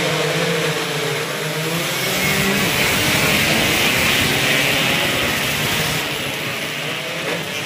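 A pack of 120cc two-stroke underbone race motorcycles revving on the start line and launching together. The massed engine noise is loudest about three to five seconds in as the bikes pass, then eases off.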